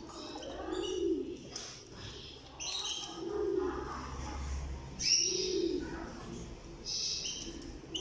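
Canaries giving short high chirps and calls several times, with a dove or pigeon cooing lower down, one coo about every two and a half seconds.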